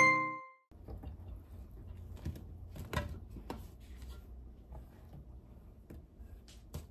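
Chunks of raw Korean radish being set down one by one into a wide metal pan: a few sharp little knocks and taps over a low steady hum. It opens with the last note of a tune ringing out and dying away.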